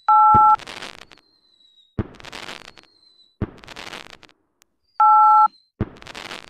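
Fireworks: rockets whistling up on a thin, slightly falling note, each ending in a sharp bang followed by about a second of crackling, four bursts in all. Right at the start and again about five seconds in, a loud steady two-tone electronic beep, like a phone keypad tone, sounds for half a second.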